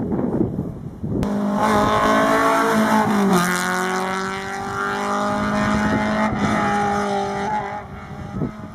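Rally car's engine running hard at high revs as the car goes by on the stage. The revs drop sharply about three seconds in, then hold high and steady before fading near the end.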